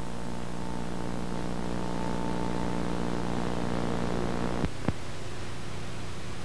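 Steady electrical hum over a light hiss, with two short clicks about three quarters of the way in.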